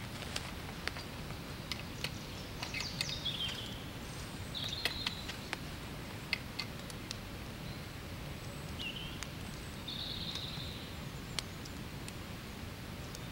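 Woodland birds giving short chirping calls, some sliding down in pitch, over a steady low outdoor rumble. Small sharp clicks and knocks come throughout from a large format field camera and tripod being set up and adjusted by hand.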